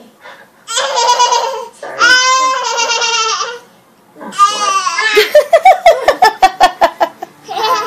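Toddler squealing and laughing: two long high squeals, then a fast run of belly-laugh bursts, about five a second.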